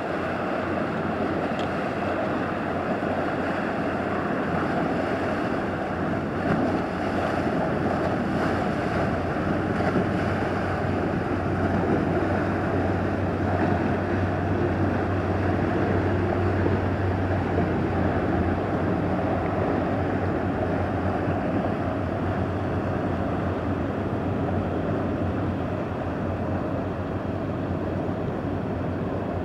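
Engine of a small steel workboat passing close by: a steady low drone that grows louder about midway through and then eases as the boat moves off. The wash of its wake runs under it.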